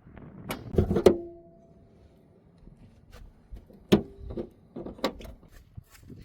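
Metal tools clinking and knocking, a few separate strikes, two of which ring briefly like struck steel, during work on a spark plug.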